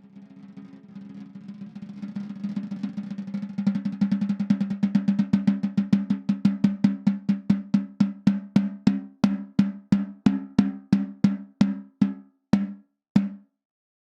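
Peace SD134 14"x4" anodized-aluminum snare drum played as a roll that starts faint and swells louder over the first few seconds. It then opens out into single strokes that slow steadily until the last hits, about a second apart, near the end. Each stroke has a clear, low ring.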